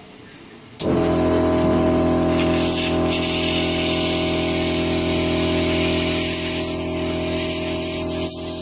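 De-powdering air equipment for a 3D-printed sandstone part switches on about a second in and runs steadily: a motor hum under a loud hiss of rushing air.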